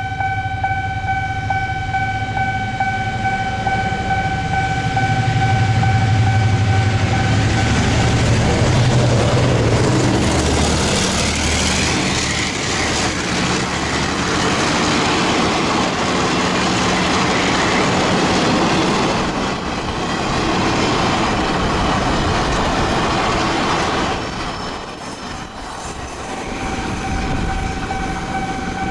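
A train passes over a level crossing. A low drone swells as the head of the train draws level, then a long, loud rush of wheels on rails follows, easing off about 24 seconds in. The crossing's electronic warning signal sounds as a steady multi-tone chime at the start and again near the end.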